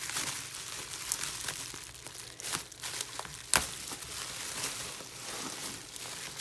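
Plastic bubble wrap crinkling and rustling as hands pull it open and peel it off a packaged album, with scattered sharp crackles and one louder crack about three and a half seconds in.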